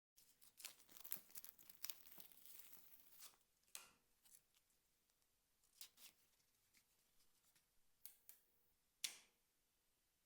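Packaging torn and crinkled for about three seconds, followed by a few separate sharp clicks and taps, the loudest near the end.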